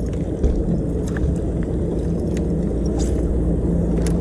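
Motorboat engine running steadily as a low drone, with a few faint ticks over it.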